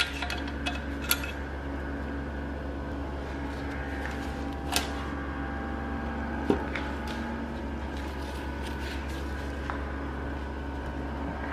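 Scattered metal clinks and knocks, the sharpest about a second, five and six and a half seconds in, as the last head bolts come out and the BMW M54's aluminium cylinder head is worked loose and lifted off the block. Under them is a steady low mechanical hum.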